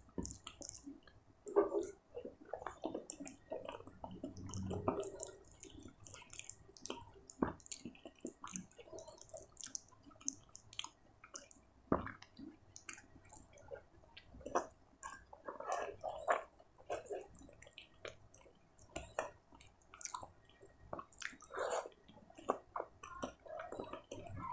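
Close-up eating sounds: a hand squishing and mixing rice with paneer curry on a paper plate, with chewing and many scattered short clicks and smacks.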